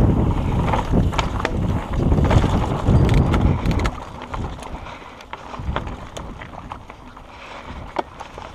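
Mountain bike rolling over a rocky trail: wind buffeting the camera microphone and the bike rattling and clicking over loose stones. The sound is loudest in the first half and drops about four seconds in, leaving scattered clicks.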